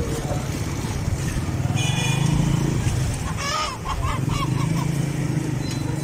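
Street traffic noise with a motor vehicle engine running steadily at a low pitch. Short bursts of voices come through in the middle.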